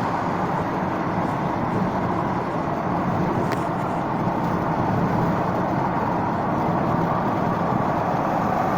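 Steady road noise of a car on the freeway: tyre and engine drone with a faint low hum, unchanging throughout.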